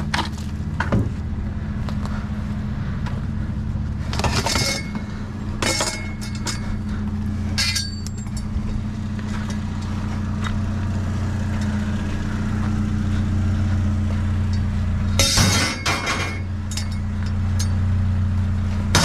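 Truck engine running steadily, with several sharp metallic clanks and rattles of scrap being moved and settling in the truck bed.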